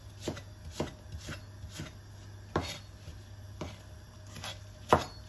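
Chef's knife slicing spring onions on a plastic cutting board: a string of short chopping knocks, about two a second, with the loudest near the end.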